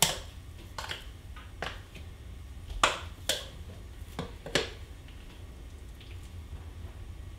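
A utensil clinking and scraping against a stainless steel mixing bowl as sticky sourdough dough is worked loose and tipped out. There are a handful of short, sharp clinks over the first four and a half seconds, the loudest about three seconds in.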